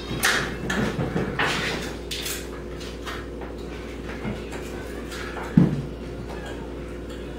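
Dishes clattering as cat food bowls are handled and set out on a table, in a few short bursts early on, then a single low thump about five and a half seconds in, over a steady low hum.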